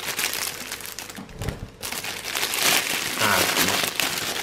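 Clear plastic bag crinkling as hands work it open around a cube puzzle, with a brief lull a little over a second in.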